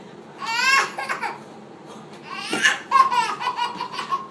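Baby girl laughing hysterically in two high-pitched bouts, the first about half a second in and the second from about two and a half seconds, breaking into quick repeated laughs.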